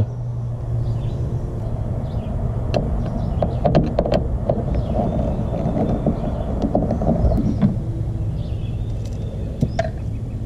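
Screws being backed out of a plastic hatch trim panel with a screwdriver, giving scattered light clicks and taps, over a steady low mechanical hum.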